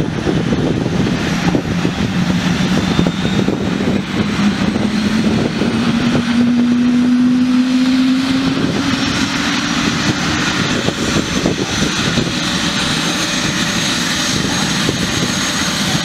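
Eurocopter EC130 B4 helicopter starting up: its Turbomeca Arriel turboshaft spools up, with a low tone that rises steadily in pitch over about the first nine seconds and a faint high whine climbing above a steady rush of engine and rotor noise.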